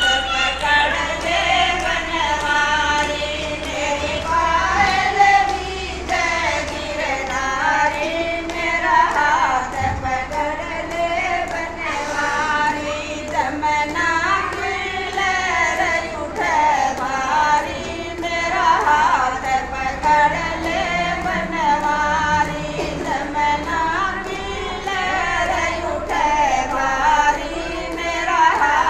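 Female voices singing a Gujari bhajan, a Hindi folk devotional song, over a steady percussion beat.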